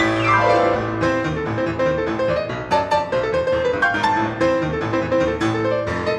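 Solo grand piano played fast: a quick downward run in the first second, then a dense stream of rapid, sharply struck notes over a low bass line.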